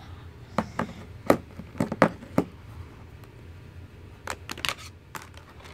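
Short plastic clicks and knocks from a Samsung Galaxy Note 2 being handled on a desk as its snap-on back cover is worked off, in two clusters of about five clicks each.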